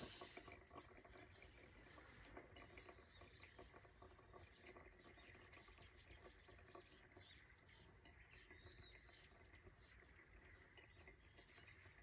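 Faint chirps of small birds, short and scattered, over a quiet low hum, with one sharp click right at the start.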